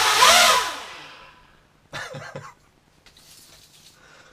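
The quadcopter's four brushless outrunner motors, without propellers, briefly spinning up on a throttle blip: a whine that rises in pitch and then falls as they wind down. A few short knocks follow about two seconds in.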